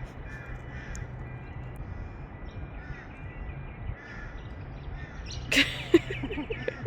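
A bird calling: faint short chirps midway, then one loud harsh call about five and a half seconds in.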